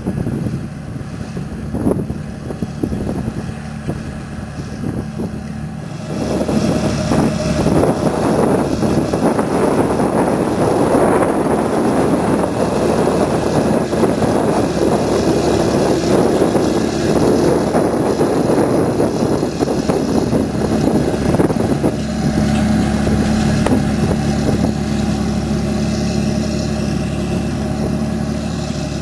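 TerraGator 8133 self-propelled slurry injector's diesel engine running steadily as the machine works across the stubble. It grows louder and fuller about six seconds in as the machine comes close, and eases to a steadier hum for the last several seconds.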